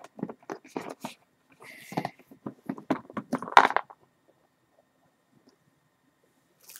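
Cardboard game box being handled and opened: a run of short knocks, taps and scrapes for about four seconds, with a brief scuffing hiss about two seconds in and the loudest knock just before it goes quiet.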